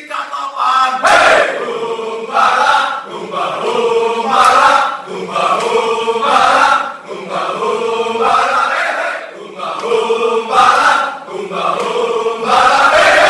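A group of men chanting and singing a yel-yel, an Indonesian morale-boosting chant, loudly in unison, in short repeated phrases about every second or so.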